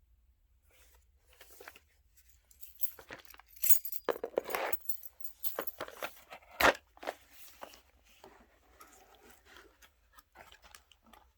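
Hands handling and unwrapping packaging: irregular rustling and crinkling of plastic and paper, with one sharp click about six and a half seconds in.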